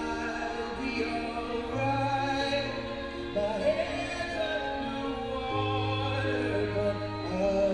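A song with a singer over sustained chords and long held bass notes that change every second or two.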